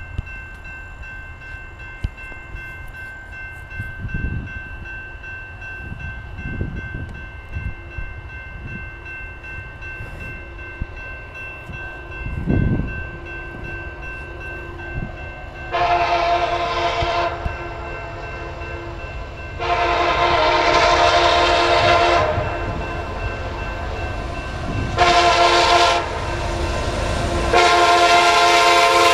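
A CN SD70ACe freight locomotive's multi-note air horn sounds the grade-crossing signal from about halfway through: two long blasts, a short one, then a long one that is still sounding at the end. Under it a level-crossing warning bell rings steadily, and wind thumps on the microphone now and then.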